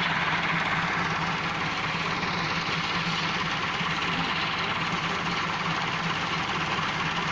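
Fiat 640 tractor's diesel engine running steadily at an even speed.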